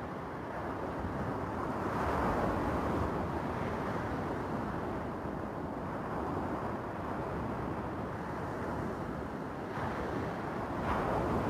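Small sea waves breaking and washing up a beach of rounded stones: a steady wash of surf that swells about two seconds in and again near the end.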